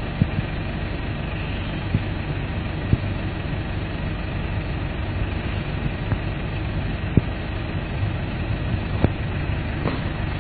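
A vehicle engine idling steadily with a low hum, with a few faint clicks.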